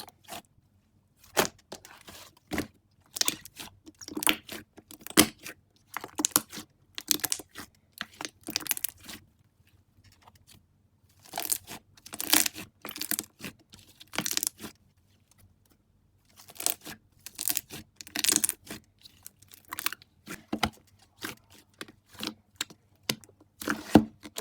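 Slime being squeezed, pressed and pulled apart by hand, giving clusters of rapid sticky pops and clicks with short pauses between handfuls.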